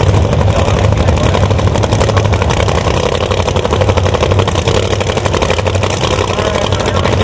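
A drag race car's engine running steadily at low speed, loud, with a fast, choppy pulse.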